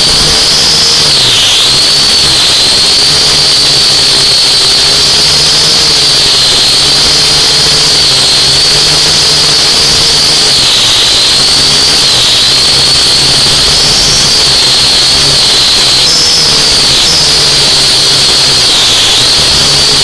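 Radio-controlled car's motor whining steadily, its pitch dipping and rising again and again as the throttle changes, over a constant hiss.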